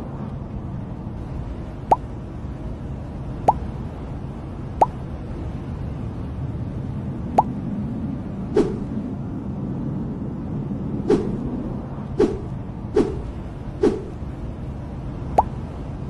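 About ten irregular single plops, like drops falling into water, over a steady low hum. The later plops are duller and lower than the first ones.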